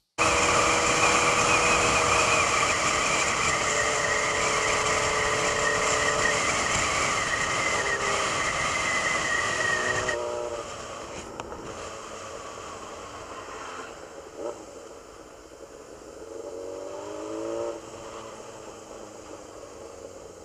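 Motorcycle running at speed with wind and road noise, louder and steadier for the first half. It quietens about halfway through, then the engine note rises near the end as the bike accelerates.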